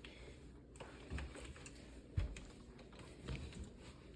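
Soft, dull thumps of someone stepping on stairs with an iWalk hands-free knee crutch, landing about once a second.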